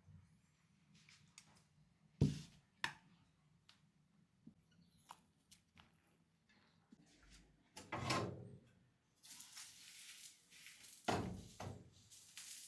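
Scattered knocks and thunks of objects being handled, with a louder clatter past the middle, then a few seconds of hissing noise toward the end.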